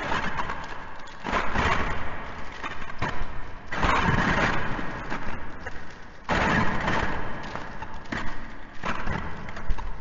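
Metal shackle chains rattling and clinking, in repeated surges every couple of seconds.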